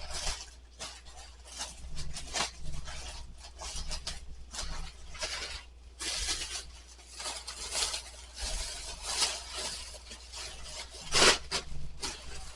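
Rustling and light clattering of kitchenware being handled and put into cupboards, in uneven bursts, with a sharper knock about eleven seconds in.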